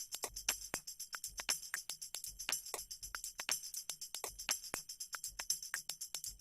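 Background music at a quiet, stripped-down passage: quick, evenly spaced percussion taps with a jingly, tambourine-like shimmer.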